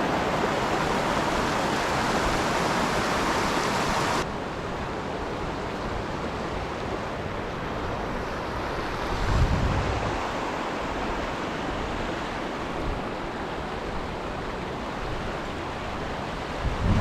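Mountain torrent rushing steadily; about four seconds in the rush drops suddenly to a softer hiss. Wind buffets the microphone briefly about halfway through.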